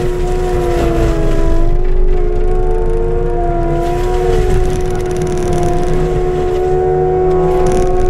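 Skid steer forestry mulcher running: a steady diesel drone under a loud whine of several tones, whose pitch sags and recovers slowly as the drum takes load in the brush. Heard from inside the cab.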